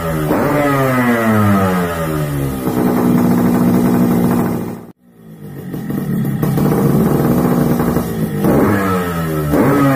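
Yamaha RX King's two-stroke single-cylinder engine revving in quick blips, each rising sharply and then falling away, with steadier running between. The sound cuts out abruptly about halfway through, then picks up again with more revs near the end.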